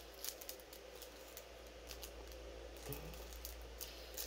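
Faint rustling and scattered light clicks of a clear plastic bag of small clock parts being handled, over a low steady hum.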